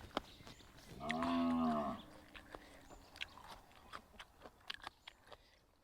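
A cow moos once, a call about a second long starting about a second in, over the close clicking and crunching of someone chewing food.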